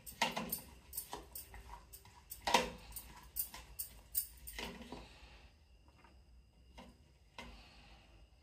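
A spoon clinking and scraping against a glass bowl as chopped carrot, onion and cucumber salad is mixed: a quick run of clicks and taps for about five seconds, then only a few scattered ticks.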